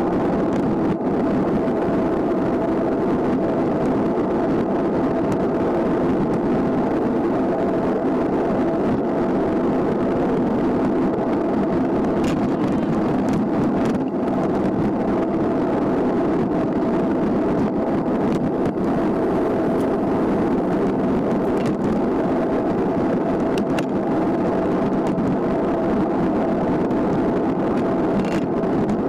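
Steady rush of wind and tyre noise from a road bicycle rolling at speed on asphalt, with a constant hum underneath.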